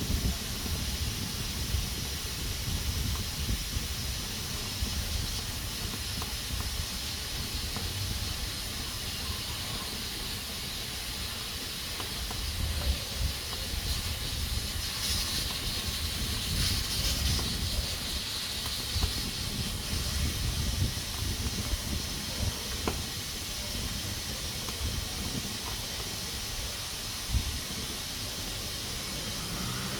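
Pressure cooker hissing steadily as steam escapes through its valve under pressure, the hiss swelling for a few seconds about halfway through, over an uneven low rumble.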